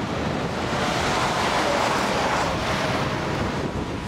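Wind buffeting the camera microphone, a steady rushing noise that swells about a second in and eases off again near three seconds.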